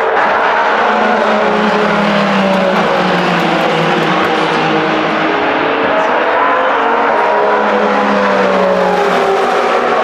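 Several endurance racing cars (Hypercar prototypes and GT cars) running at speed on the circuit, their engine notes overlapping and gliding up and down in pitch as they pass and shift. A deeper engine note swells about a second in and again near the eight-second mark.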